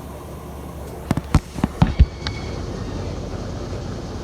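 Electrolux LF75 top-load washing machine running with a steady low hum, broken about a second in by a quick run of six or so sharp knocks.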